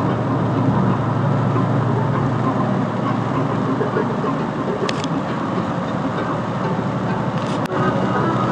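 Steady road and tyre noise inside a car driving on a rain-wet highway, with a short click about halfway through. The sound drops out briefly near the end, where the footage is spliced.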